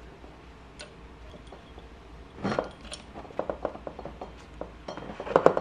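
Metal motorcycle fork parts clinking as a new bottom bushing is slid onto the inner fork tube: a knock about two and a half seconds in, then a run of light clinks with brief ringing, loudest near the end.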